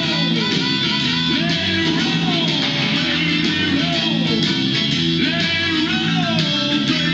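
Background music: a guitar-led instrumental with steady bass notes and a bending guitar figure repeating about every second.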